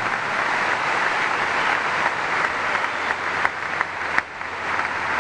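Crowd applauding steadily, with a few sharper single claps standing out about three and a half to four seconds in.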